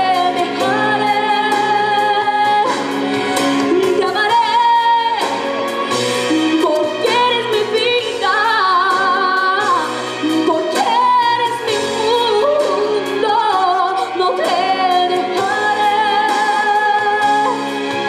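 A boy's unbroken voice singing a song into a handheld microphone over instrumental accompaniment, with long held notes and vibrato. His singing stops at the very end while the accompaniment plays on.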